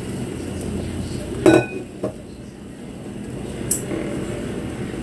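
Kitchenware clinks once, sharply and with a brief ring, about a second and a half in, followed by a softer knock, over a steady low hum.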